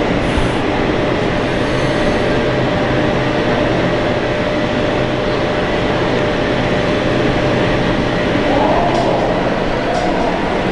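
Steady loud rushing noise with a low mechanical hum and a thin steady tone, the sound of running machinery such as the aquarium's pumps and ventilation.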